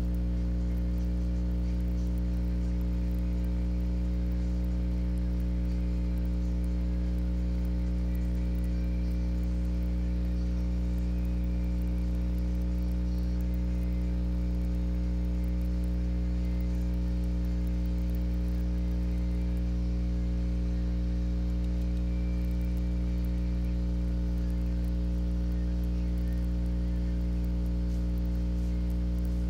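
Steady electrical mains hum: a low, unchanging drone with a stack of buzzy higher overtones above it, and nothing else.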